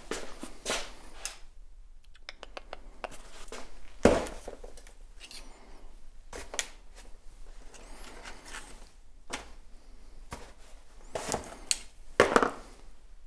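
Handling noises: irregular clicks, rustles and knocks of objects being moved and set down, with a loud knock about four seconds in and several sharp knocks near the end.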